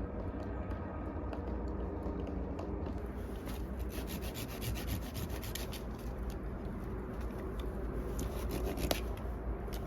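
Repeated rubbing and scraping, with a run of short scratchy strokes from about three seconds in, over a steady low rumble.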